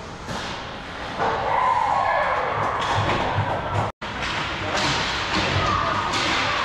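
Ice hockey game sounds in an echoing rink: sticks and puck clacking, skates on the ice, and players' voices calling out. The sound drops out briefly about four seconds in.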